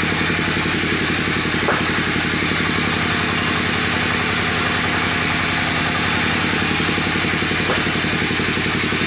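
Small engine powering a wood saw, running steadily at an even speed.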